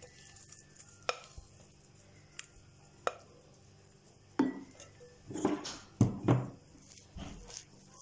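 Silicone spatula scraping and knocking against glass as thick nut-and-coconut batter is scraped from a glass mixing bowl into a glass baking dish: a few sharp clicks in the first three seconds, then a run of louder scrapes and knocks from about four and a half seconds in.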